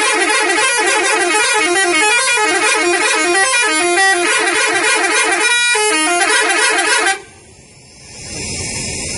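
Indonesian 'telolet' multi-tone bus horn playing a rapid warbling tune of quickly alternating notes. It cuts off suddenly about seven seconds in.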